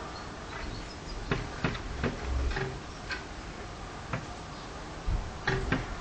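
A sparrow pecking at window glass: sharp taps at irregular intervals, two of them close together near the end.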